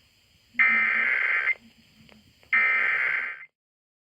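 Emergency Alert System SAME header: bursts of digital data tones, each about a second long and a second apart, the second and third of the three repeats that encode the alert, here a Required Monthly Test.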